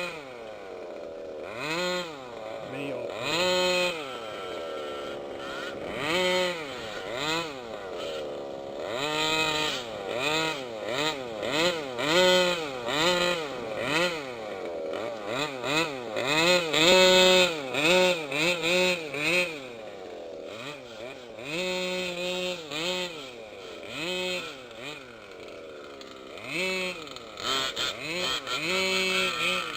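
Small two-stroke engines of 1/5-scale gas RC off-road cars revving up and falling back over and over as the throttle is blipped while driving.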